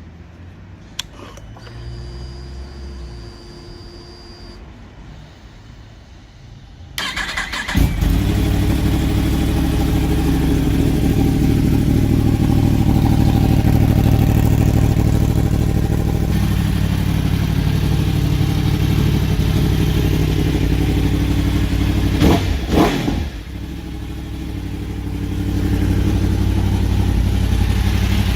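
Yamaha R1 crossplane inline-four through an aftermarket exhaust, cranked and firing up about seven seconds in, then running at a loud, steady fast idle. Two quick throttle blips come near the end, followed by a brief dip and the engine building back up.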